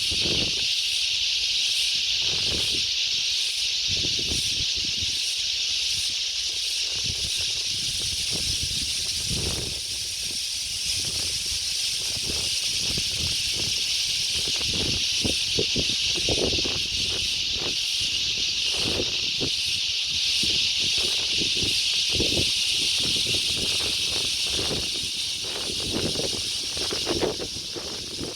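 A steady, high-pitched chorus of insects droning, with a fainter rhythmic pulsing above it. Gusts of wind buffet the microphone with low rumbles that come and go.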